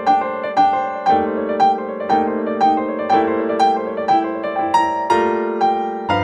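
Background piano music: a steady run of notes about two a second over held chords that change every second or so.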